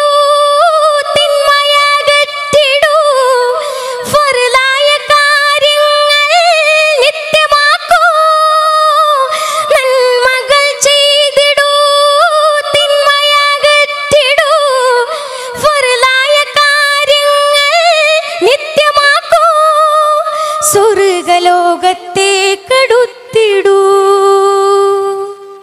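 Malayalam Islamic devotional song (bhakthiganam) sung by a single high voice, with rapid ornamented turns between held notes. It settles onto a long, steady lower note near the end and then stops.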